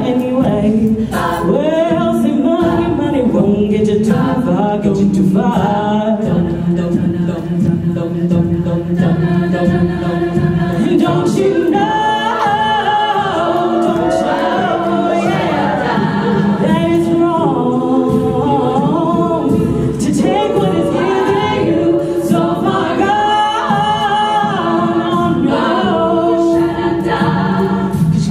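Women's a cappella group singing: backing voices hold steady chords under moving vocal lines, with no instruments.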